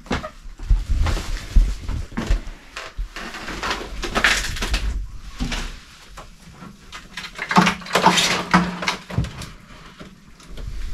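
Knocks, clicks and scraping rustles of objects being handled and moved in a small room, with two busier stretches of scraping about four and eight seconds in.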